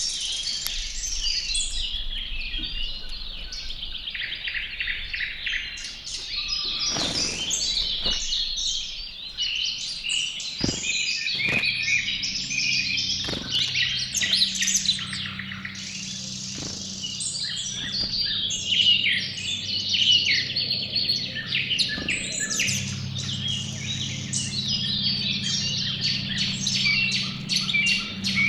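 Many songbirds chirping and singing at once in a dense, continuous chorus. A few sharp knocks come in the first half, and a low steady hum joins about halfway through.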